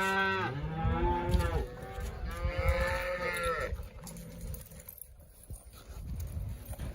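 Cattle mooing: three long calls in the first four seconds, one overlapping the next, then a quieter stretch.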